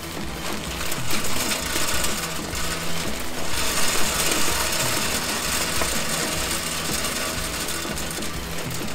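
Wood pellets pouring from a bag into the metal hopper of a Pit Boss pellet smoker: a steady rush of small hard pellets that gets louder about three and a half seconds in. Background music with a beat runs underneath.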